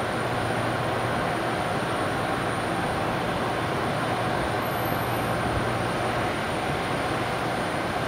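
EP2K DC electric locomotive standing at the platform with its ventilation fans running: a steady hum with a low drone and a mid-pitched tone, unchanging in level.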